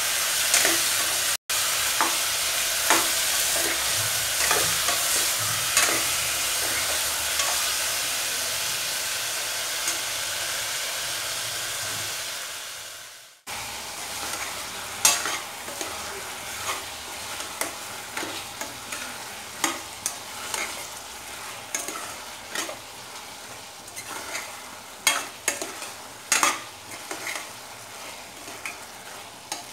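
Chopped tomatoes frying in oil in a metal pot, a steady sizzle, with a metal spoon stirring and scraping against the pot. After a short break about halfway through, the sizzle is quieter and the spoon knocks and scrapes against the pot more often.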